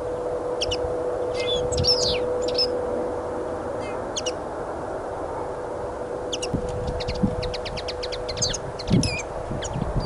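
Small songbirds chirping and calling in short, scattered high notes, with a rapid trill about seven seconds in, over a steady low hum. Wind buffets the microphone in gusts from about six seconds in.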